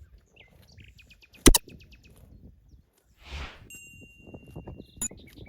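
Small birds chirping, with a quick trill in the first second and a thin whistle later, over a faint outdoor background. The loudest thing is a single sharp knock about one and a half seconds in, followed a couple of seconds later by a short rustling hiss and another click near the end.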